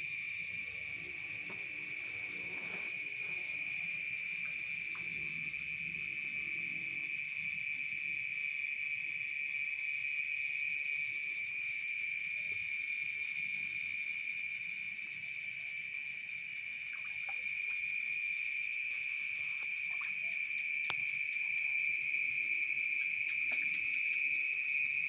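Night insects trilling in a continuous high-pitched drone that holds steady throughout, growing slightly louder near the end, with a few faint clicks.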